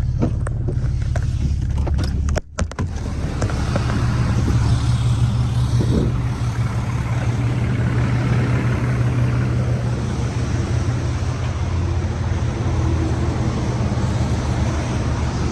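Truck running, a steady low engine drone with road and tyre noise over it, broken by a brief dropout about two and a half seconds in.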